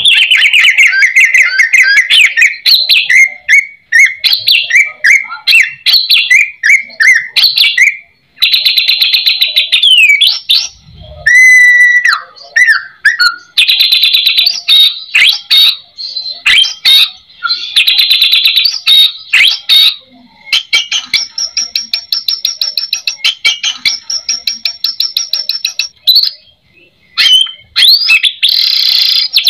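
White-rumped shama singing loudly and almost without pause: a varied song of rapid repeated notes, fast trills and gliding whistled phrases, full of mimicked calls.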